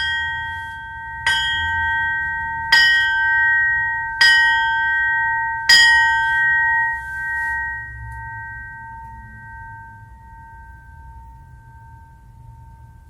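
Cast copy of a broken old Siberian church bell, struck five times about a second and a half apart, recreating how the broken original once sounded. Each stroke rings a clear, steady tone, and after the last one the ringing dies away slowly over about six seconds.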